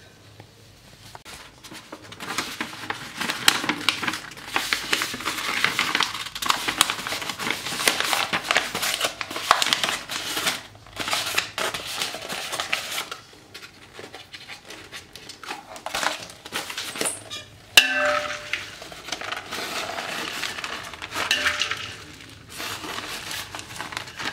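A sheet of paper rustling and crackling as it is rolled into a cone by hand, with dry puffed rice crunching and rattling against a steel bowl. One sharp knock comes about two-thirds of the way through.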